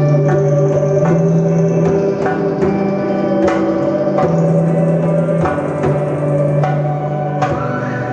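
Live band music in an instrumental passage: a low bass line moves between held notes every second or two under a steady drone, punctuated by sharp percussion hits.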